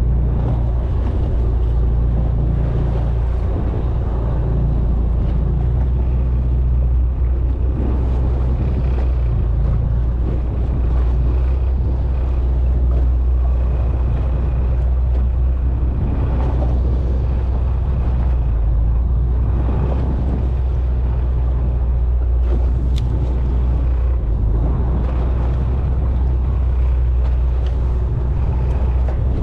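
Fishing boat's engine running steadily with a deep, even hum, with wind buffeting the microphone.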